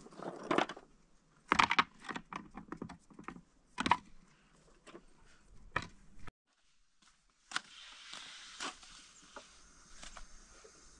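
Stones clacking and knocking against one another as they are loaded by hand into a basin, a handful of sharp knocks over several seconds. After a brief gap, a faint steady hiss with a few light taps.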